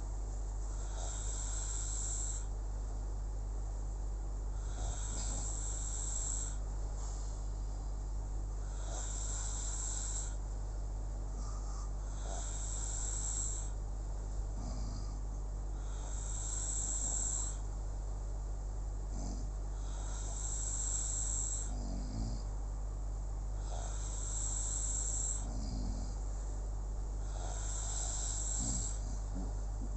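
Snoring in slow, even breaths, a hissy snore about every four seconds, over a steady low hum.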